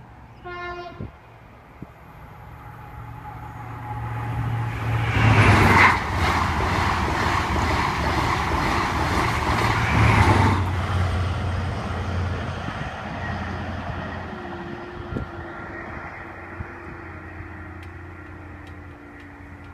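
An express passenger train passes a level crossing at speed. It gives a brief horn note as it approaches, then its rushing wheel and air noise builds, is loudest for about five seconds mid-way and fades as it goes. Near the end a low, slowly falling whine comes from the crossing barriers as they rise.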